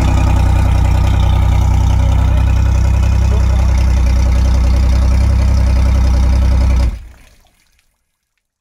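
Mercury Optimax 75 hp three-cylinder direct-injection two-stroke outboard idling steadily at about 750 rpm while cooling liquid is run through it for winter storage. The engine sound cuts off about seven seconds in.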